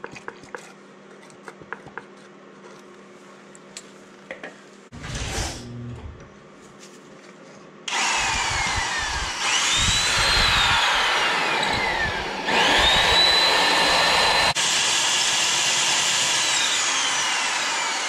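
Heavy right-angle electric drill boring a large bit into the steel crankshaft of a Wisconsin VH4D engine through a guide. It starts suddenly about eight seconds in with a motor whine that rises and falls, stops briefly twice and starts again, cutting steel. Before that there are only small handling clicks and a brief knock.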